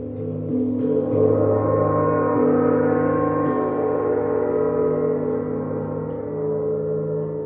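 Large hanging gong played with a soft mallet: a dense wash of many ringing tones that swells over the first second or so as soft strokes build it up, then slowly fades.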